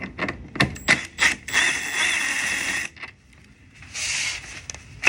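A few sharp clicks and knocks, then a cordless impact driver running in reverse with a steady motor whine for about a second and a half, backing the M6 bolt out of the freshly set rivnut. A shorter burst of the same tool follows about four seconds in.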